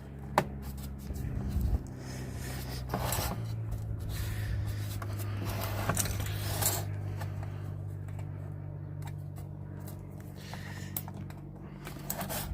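Clicks and scraping of metal and plastic as the casing of a car radio cassette unit is lined up and fitted back together, with a steady low hum underneath.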